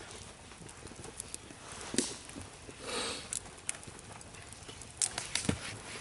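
Birch-log torch fire burning, with scattered crackles and pops and a few sharper knocks, about two seconds in and near the end.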